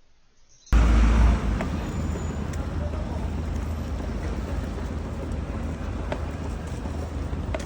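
Steady outdoor background noise with a deep low rumble, cutting in suddenly about a second in, with a few faint clicks.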